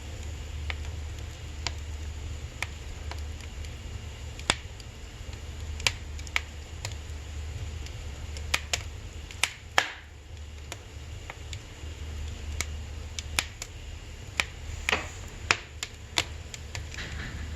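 Firewood burning in a wood-burning stove: irregular sharp crackles and pops over a steady low hum.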